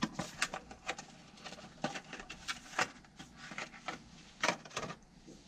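Cardboard and plastic toy-car packaging being handled and opened, a string of irregular sharp clicks and crinkles as a die-cast car is worked out of its box.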